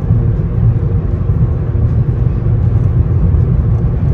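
Steady low rumble of a car driving, with no change in pitch or level.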